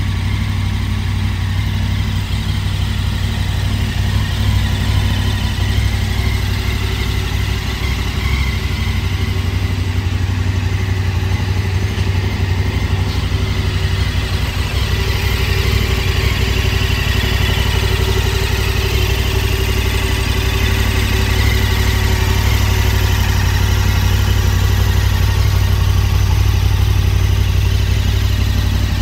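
KTM 1290 Super Adventure's V-twin engine idling steadily through an Akrapovic exhaust, with an even, unchanging beat.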